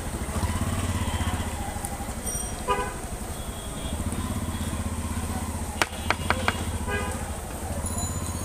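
A motor vehicle engine idling with a steady, low, pulsing rumble. A few sharp clicks come about six seconds in.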